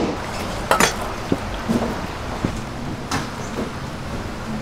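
Metal tongs clacking against steel trays and a wire cooling rack, with a few sharp clacks: one at the start, one just under a second in, and one about three seconds in, over steady background noise.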